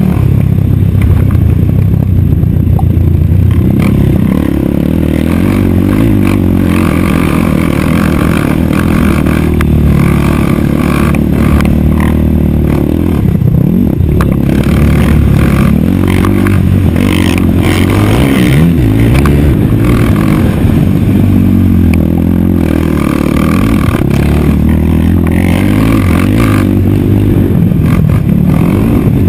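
Race quad's single-cylinder four-stroke engine at racing speed, repeatedly revving up and dropping back through gear changes and off the throttle. Wind rushes over the helmet-camera microphone.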